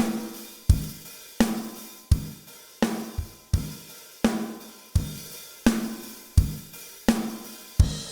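A recorded rock drum kit playing back through a mix: a steady beat of kick and snare hits about every 0.7 seconds, with cymbals over them. It is played for an A/B bypass comparison of the Avalon 747 compressor/EQ plugin.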